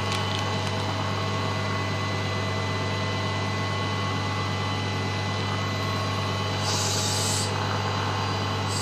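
Dental surgical suction unit running with a steady motor hum, with a brief louder hiss about seven seconds in.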